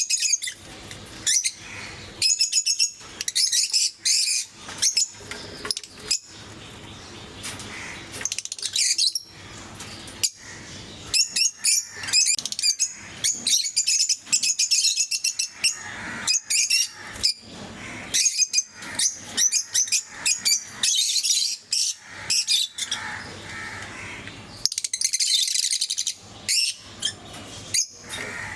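Pet lovebirds chirping and calling: many short, shrill, high-pitched chirps in quick irregular bursts, several birds overlapping.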